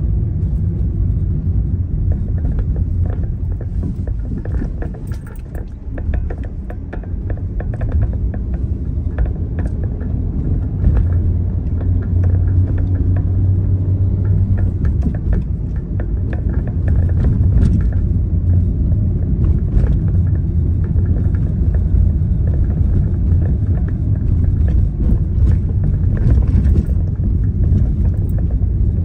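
Car driving through city streets: a steady low rumble from the engine and the road, with frequent small knocks and rattles.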